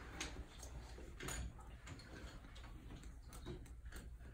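Quiet classroom with faint, irregular light ticks and taps of pencils and papers at the students' desks over a low room hum.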